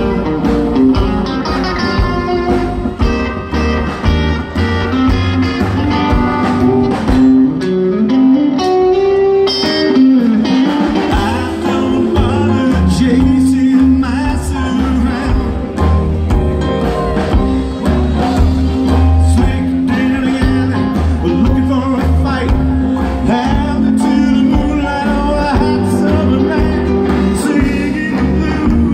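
Live rockabilly band playing, with upright bass and electric guitar.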